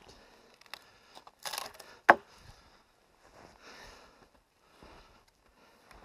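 Wood being handled: rustling, then one sharp wooden knock about two seconds in, followed by quieter scraping and rustling.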